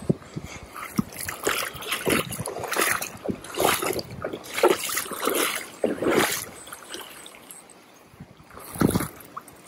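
Irregular splashing of river water in shallow water while a hooked salmon is being played, heaviest through the middle and once more near the end.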